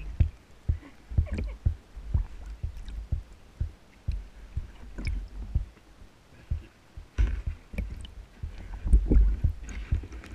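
Water sloshing and gurgling as heard by a camera submerged in a water-filled bowl while a dog pushes its snout into the water. It comes as muffled, irregular low thumps and splashes, busier from about seven seconds in.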